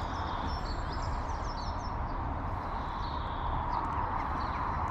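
Steady outdoor background rumble and hiss, with small birds chirping now and then.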